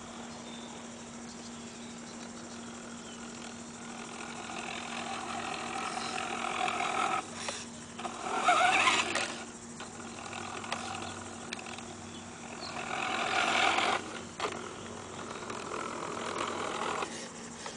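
Toy radio-controlled Hummer H2 truck's electric drive motor and gears whining as it drives over grass, in several bursts that rise and then cut off suddenly, the loudest about eight to nine seconds in.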